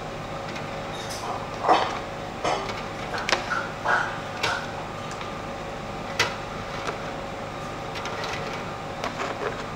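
Kitchen handling sounds: a few light knocks and clatters of cookware over a steady background hum.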